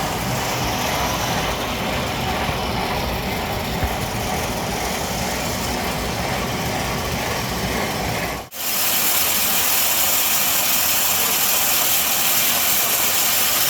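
Wood pellet production machinery running with a steady, dense mechanical noise. About eight and a half seconds in the sound cuts out for a moment and comes back with more hiss and less low rumble.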